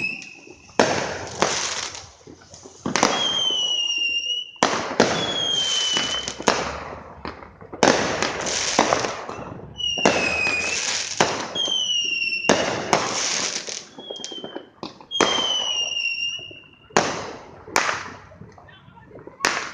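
Fireworks going off in a rapid barrage: a loud bang every second or two, each followed by crackling, with several short whistles that fall slightly in pitch.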